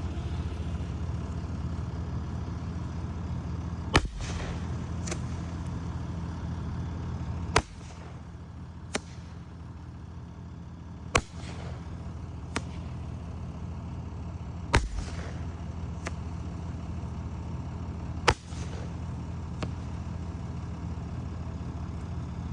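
Black Cat glitter fireworks going off: a run of about ten sharp pops and bangs at uneven intervals, four of them louder than the rest, over a steady low hum.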